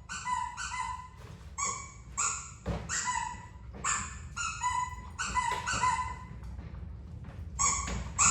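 Pet squeaky toy squeaking again and again: about a dozen short, high squeaks of nearly steady pitch in uneven succession.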